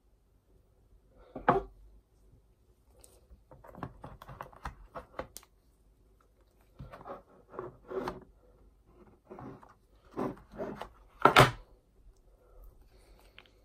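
Gloved hands handling a smartphone box and its contents: scattered taps, clicks and rustles, with a louder knock about a second and a half in and the loudest one towards the end.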